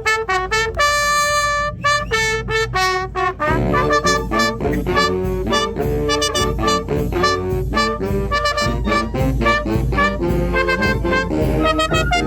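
A fanfarra brass band playing: first a brass phrase of held notes, then about three and a half seconds in the full band joins with drums.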